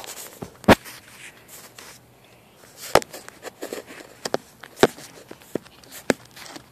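Footsteps with scattered, irregularly spaced sharp knocks and clicks.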